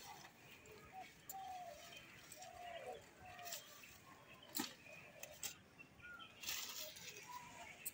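Faint bird calls outdoors: short falling notes repeated every second or so. A few sharp clicks come about halfway through, and a brief rustle of leaves near the end, as gourd vines are pulled and cut with a sickle.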